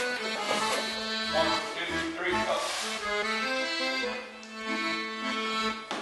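Background music: an instrumental tune with held chords over a regular bass beat.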